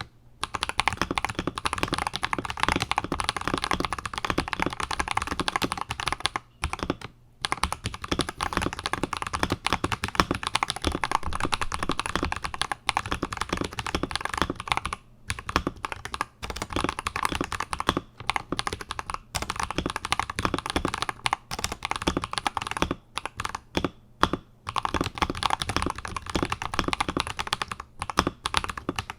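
Fast continuous typing on an Akko 5075S mechanical keyboard with Akko Lavender Purple switches lubed with Krytox 205g0 and a polycarbonate plate: rapid key clacks with a few brief pauses.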